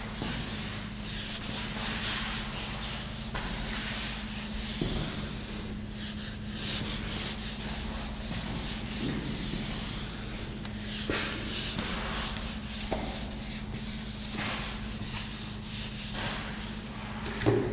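Whiteboard eraser rubbed across a whiteboard, a long run of back-and-forth wiping strokes.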